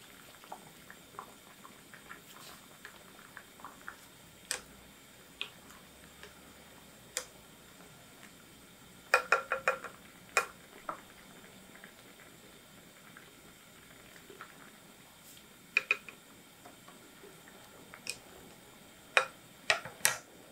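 Scattered light clinks and taps of dishes and utensils, with a quick cluster of sharp clinks about nine seconds in and a few more near the end.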